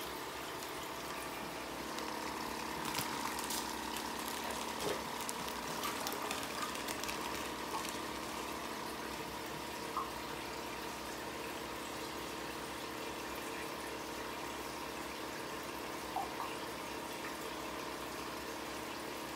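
Aquarium water running steadily: a constant trickle with a low pump hum underneath. A few light clicks and taps come in the first third, with single ones about ten and sixteen seconds in.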